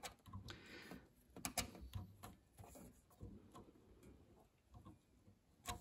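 Faint scattered clicks and ticks of fingers and a small tool working a flexible dust cover into place around a gas hob's control valve spindle, with a couple of sharper clicks about one and a half seconds in and another near the end.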